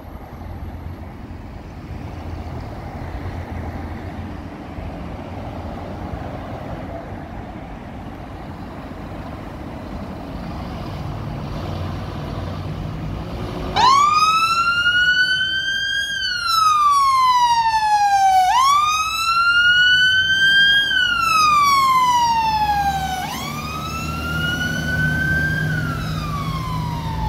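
Road traffic passing, then about halfway through a fire engine's wail siren starts on a Dublin Fire Brigade Scania P320 pump. It rises and falls in a slow cycle about every four and a half seconds.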